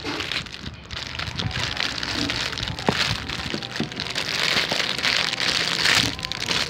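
Clear plastic bag crinkling and rustling as it is handled and pulled open by hand, with many small crackles.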